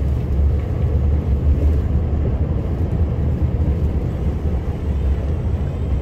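Snowplow truck running at speed through snow drifts, heard from inside the cab: a steady low engine and road rumble.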